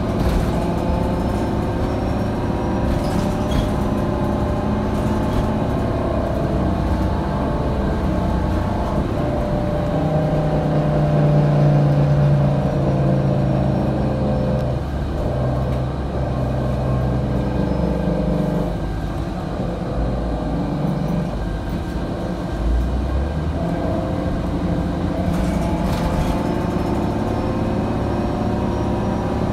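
Interior of a 2008 Orion VII Next Generation hybrid bus on the move, with the Cummins ISB diesel and BAE Systems HybriDrive electric drive running. Several steady tones drift up and down in pitch with the bus's speed, loudest about a third of the way in and easing off past the middle.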